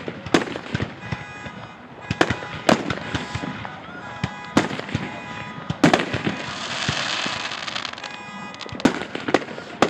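Fireworks display: aerial shells bursting with sharp bangs at irregular intervals, about eight in all, the loudest about six seconds in, with a hissing crackle just after it.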